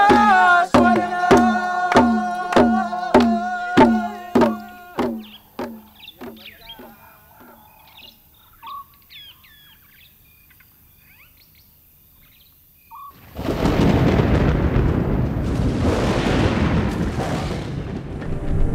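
Ceremonial drumming, about two beats a second, under long held tones, fading away over the first five seconds, followed by a few faint chirps. About thirteen seconds in, thunder breaks in suddenly as a loud, continuous rumble.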